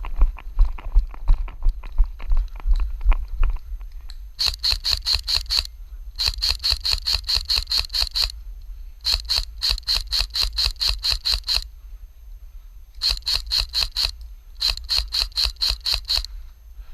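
Airsoft electric rifle firing five bursts of rapid, evenly spaced shots on full auto, each burst one to two seconds long with short pauses between. Before the first burst, a few seconds of rhythmic dull thumping.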